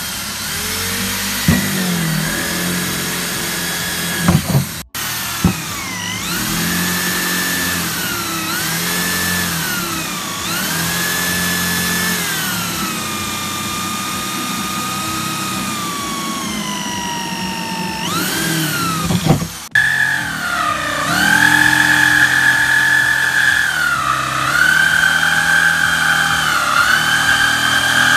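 Electric drill with a hole saw cutting through the top of a white plastic tank, its motor whine rising and falling as speed and load change. It cuts off abruptly about five seconds in and again about twenty seconds in, and runs louder after the second break.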